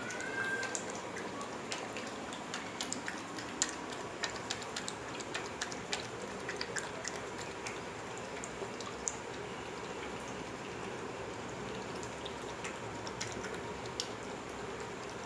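Pomeranian lapping and licking yogurt: a run of small wet mouth clicks and smacks, many in the first half and sparser later, over a steady background hiss.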